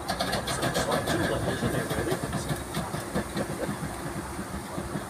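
Class 08 diesel shunter's English Electric six-cylinder engine running as the locomotive moves slowly along the track towards the listener, a steady low rumble. A few light clicks come through in the first second or so.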